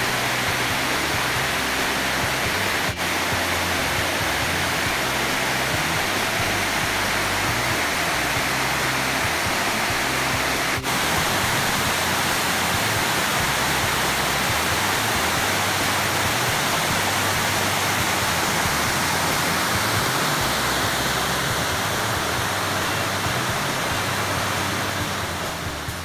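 Steady rush of water cascading down the rock ledges of a stepped waterfall, with two brief clicks about three and eleven seconds in.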